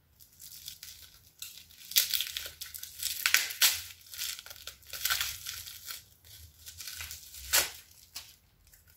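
Plastic packaging crinkling and tearing as a small cosmetic item is unwrapped by hand, in irregular rustling spells.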